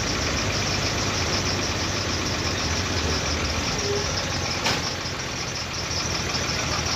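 A vehicle's engine running steadily, with a single sharp knock about four and a half seconds in.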